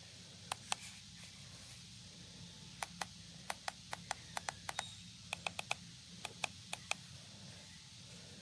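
A string of short, sharp clicks and taps at irregular intervals, bunched in the middle, over a faint low hum.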